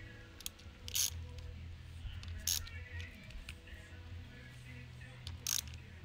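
Hand socket ratchet tightening a lock nut onto a door latch actuator bolt: three short bursts of ratchet clicking, spread a second or more apart, as the handle is worked back and forth.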